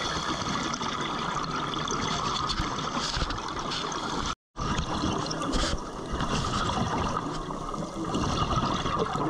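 Underwater noise around a working diver: a steady watery hiss that cuts out completely for a moment about four and a half seconds in.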